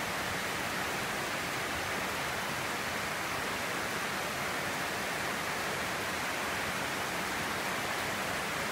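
Steady rain, an even hiss with no single drops standing out.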